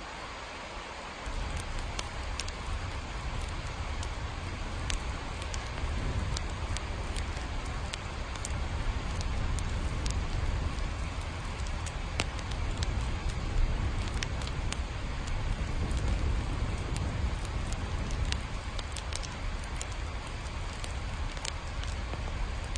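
Steady rain ambience with scattered sharp drips or crackles, and a deep low rumble that sets in about a second in and continues.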